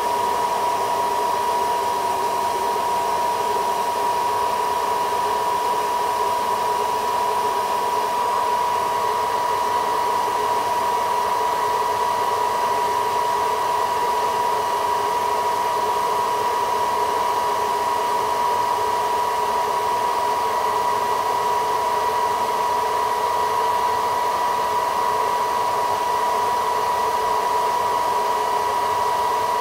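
Hair dryer blowing steadily, its airflow carrying a high, constant motor whine. It is heating the glass back of a smartphone to soften the adhesive before the back is pried off.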